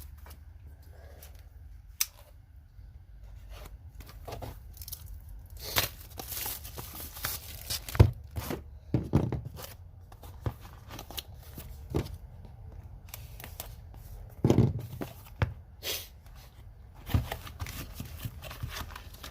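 Packaging of a new impact socket set being torn open and handled: tearing and crinkling, with scattered sharp clicks and knocks throughout.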